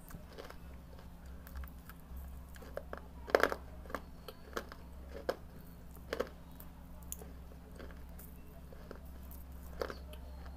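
Someone biting and chewing pieces of baked red clay. There are scattered sharp crunches, the loudest about a third of the way in and another just past halfway.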